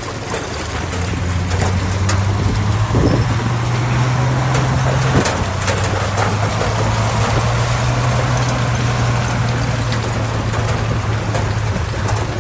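Heavy diesel engine of earthmoving machinery running steadily, its note shifting slightly a few seconds in.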